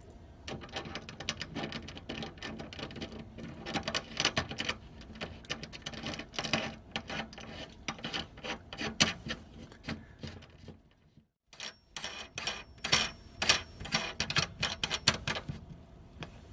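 Rapid, irregular small metal clicks and scrapes of a brass retaining ring being screwed down by hand onto a replacement lock barrel, with a brief break about two-thirds of the way through.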